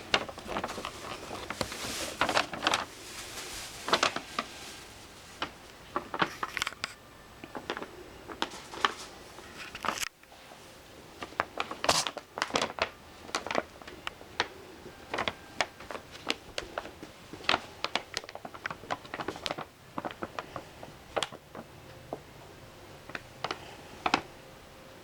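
A paper bag crinkling and crackling as cats play in it, in irregular sharp rustles and crackles.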